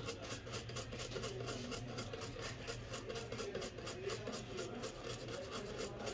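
A small brush scrubbing a smartphone circuit board clean, in rapid back-and-forth strokes several times a second, over a faint steady hum.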